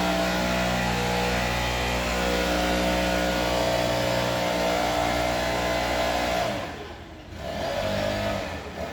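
Stihl BR 600 backpack leaf blower running at speed: its four-stroke 4-MIX engine hum under the rush of the fan. The sound drops away about seven seconds in and builds back up near the end.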